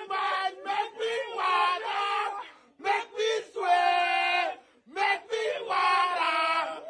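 Men shouting and chanting in celebration, one voice close and loud, with long drawn-out cries; it breaks off briefly twice.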